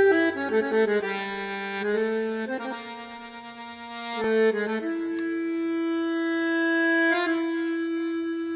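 Piano accordion playing a melody: quick note changes over the first couple of seconds, then a long held note from about five to seven seconds in.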